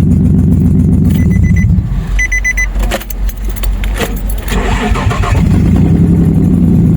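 Nissan Xterra engine running after a camshaft sensor replacement cured its no-spark, no-start fault; its sound drops away about two seconds in, with a few short beeps and clicks, then it is running again about five and a half seconds in.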